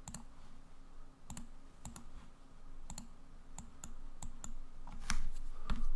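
Irregular clicking of a computer mouse as chess pieces are dragged about an on-screen board: a dozen or so sharp clicks at uneven intervals, the loudest a little after five seconds in.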